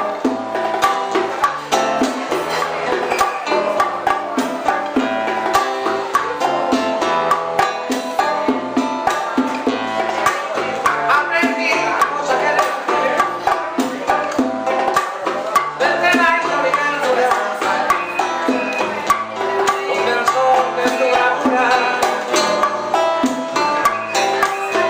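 Live old-school Cuban band playing, with plucked strings over hand percussion keeping a steady beat.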